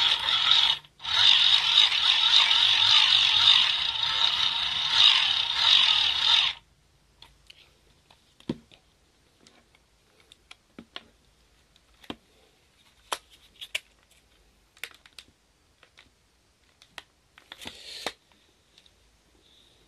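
K-TOR Pocket Socket hand-crank generator being cranked, a steady whirring with a gear whine. It stops briefly about a second in, runs on, and stops at about six and a half seconds. Then come a few light clicks and knocks.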